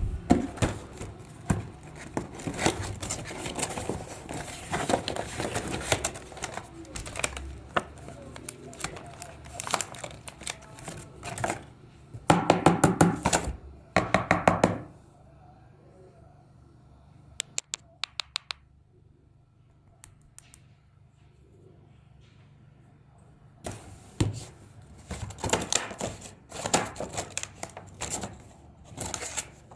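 Many clicks, taps and knocks, with two rapid runs of loud knocking about twelve and fourteen seconds in, then a quieter stretch with a few small ticks before the knocking picks up again.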